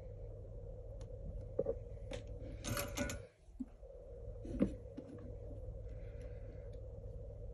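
Hands handling wires and an LED strip on a drone frame: light clicks, a brief rustle about three seconds in and a sharp knock near the middle, over a steady low hum. The background cuts out for a moment just after the rustle.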